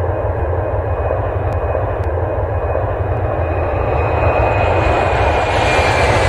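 Jet airliner engines running: a deep rumble and roar that grows steadily louder, with a thin high whine that slowly falls in pitch near the end.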